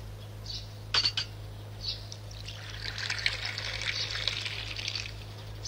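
Coffee poured from a porcelain coffee pot into a china cup: a stream of liquid running for about two and a half seconds, starting a little before halfway through. A few short clicks come before the pour.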